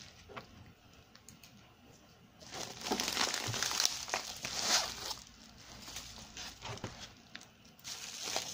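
Plastic packaging crinkling and rustling as it is unwrapped by hand. It is faint for the first couple of seconds, loudest for about three seconds after that, then dies down to light rustles.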